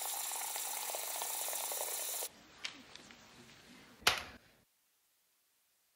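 Tap water running into a clear plastic tub, a steady splashing hiss that cuts off suddenly about two seconds in. A single sharp click follows about four seconds in.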